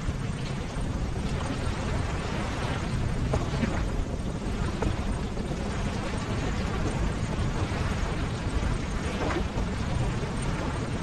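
Ocean waves: a continuous rushing surf with a deep low rumble, swelling and easing as the waves wash in.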